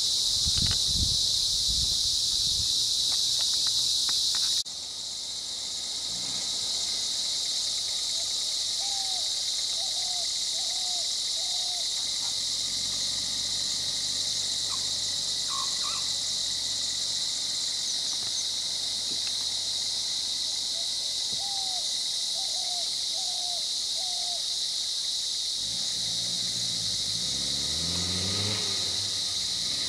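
Steady, loud shrill chorus of insects. A bird twice calls a run of four short chirps, and a low droning sound that rises and falls comes in near the end.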